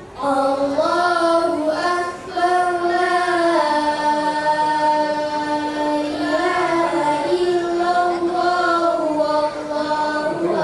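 A girl reciting the Qur'an in melodic chant (tilawah) into a microphone: a single young voice, with a long held note in the middle.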